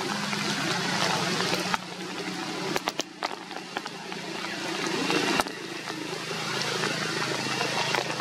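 Steady rain hiss with a few sharp drip-like clicks, over a low steady hum.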